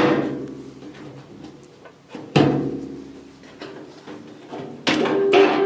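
Background music: three chords struck on a plucked string instrument, each ringing out and dying away, with quicker plucked notes near the end.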